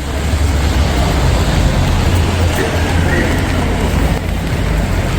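City street ambience: a steady low rumble of passing traffic under an even hiss, with no distinct events.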